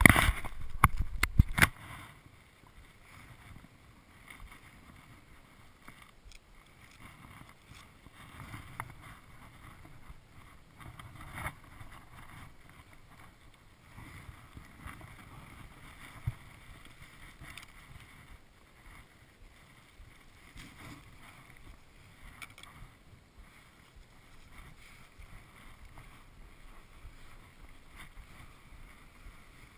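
Skis sliding and scraping over snow on a steep descent, faint, with light wind on the microphone; a few loud knocks in the first two seconds.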